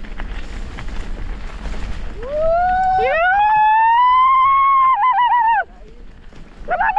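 Wind and tyre noise from the bike for about two seconds, then a person's long, loud, high-pitched holler. The holler rises in pitch, holds, breaks into a yodel-like warble and cuts off. A second warbling call starts near the end.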